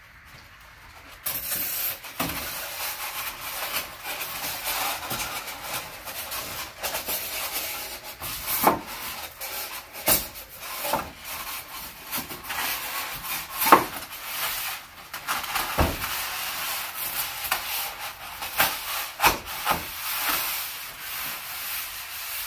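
Styrofoam insulation board rubbing and scraping against an aluminum garage door panel as it is bent and pushed into the recess, with scattered sharp knocks and clicks.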